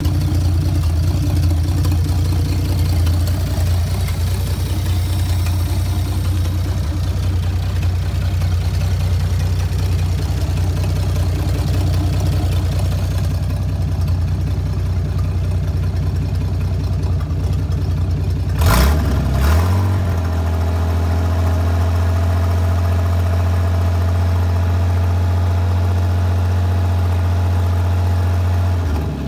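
Hercules six-cylinder engine running at a steady idle. About two-thirds of the way through, a couple of brief louder blips and a rise in pitch take it to a smoother, steady run at a slightly higher speed.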